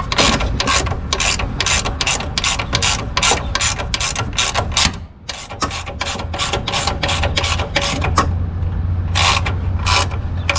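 Hand ratchet clicking as bolts are run down and tightened on an engine, rapid clicks at about four a second, a brief pause around the middle, then two last clicks near the end.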